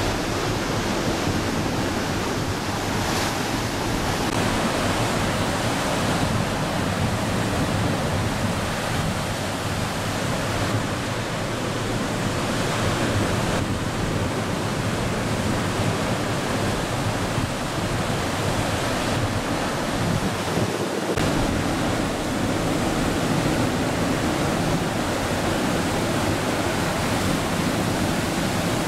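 Steady rushing noise of wind and heavy ocean surf from large breaking waves.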